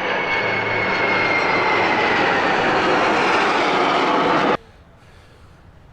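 A formation of aircraft flying low overhead: loud engine noise with a high tone sliding slowly downward as they pass. It cuts off suddenly about four and a half seconds in.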